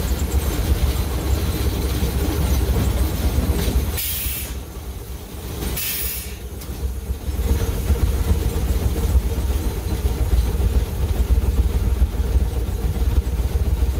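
Narrow-gauge steam locomotive running along the track, heard from inside its cab as a steady low rumble. About four seconds in comes a short burst of hiss, and a second one follows two seconds later. The rumble eases briefly in between.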